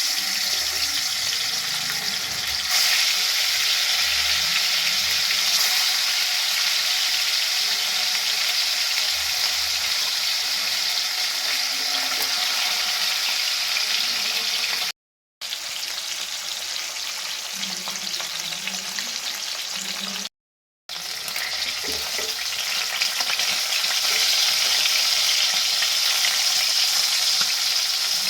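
Pieces of rohu fish, marinated with turmeric, salt and chilli powder, frying in hot mustard oil in a kadai: a steady sizzle that cuts out twice for a moment past the middle.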